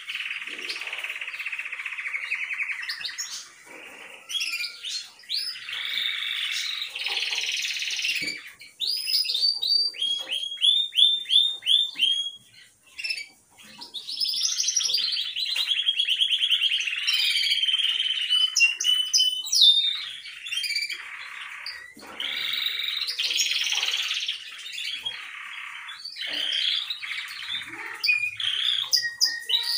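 Canary singing a long song of fast trills and runs of repeated whistled notes, with a brief pause about thirteen seconds in.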